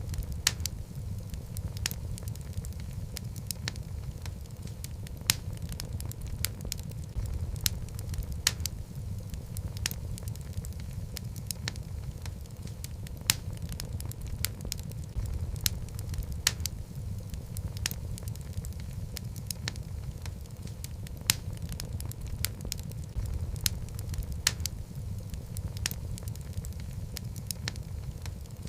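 Wood fire burning in a fireplace: a steady low rumble of the flames with frequent sharp, irregular crackles and pops from the logs.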